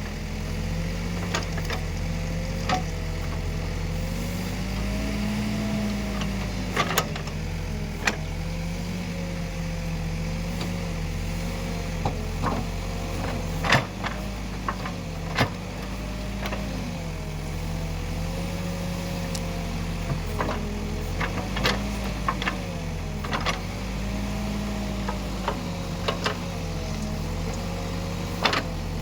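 Diesel engine of an Escorts Digmax backhoe loader working while digging and loading mud, its pitch rising and dipping every few seconds, with several short sharp metal clanks scattered through.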